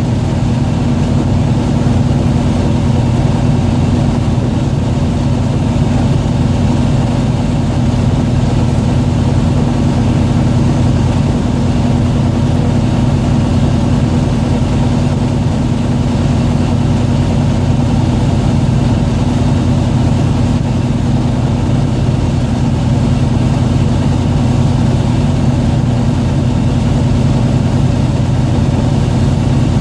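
Fishing boat's engine running steadily, a constant low drone that holds the same pitch throughout.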